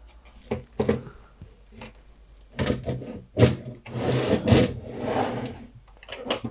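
Plastic case of a Spectravideo SVI-328 home computer being handled and pried open: a few knocks in the first second, then about three seconds of scraping and creaking plastic as the top case is worked loose.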